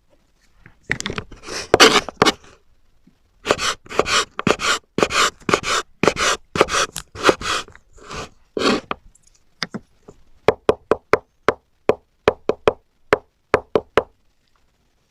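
Knife cutting through eggplant on a cutting board. A run of slicing strokes at about two a second gives way, about two-thirds of the way through, to quicker, shorter chops at about three a second.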